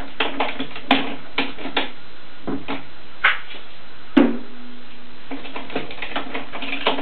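Scattered light clicks and knocks of hands working bar clamps on a glued wooden window frame, over a steady hiss. The loudest is a sharp knock about four seconds in, with a brief ring after it.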